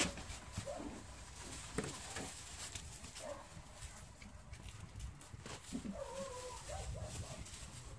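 Livestock bleating in a pen: a short call about three seconds in, then a longer quavering bleat near the end, among a few soft knocks.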